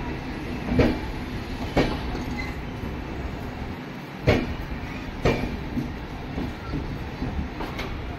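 Indian Railways passenger coaches rolling slowly past as the train departs, a steady rumble broken by sharp wheel clacks over rail joints, coming in pairs about a second apart.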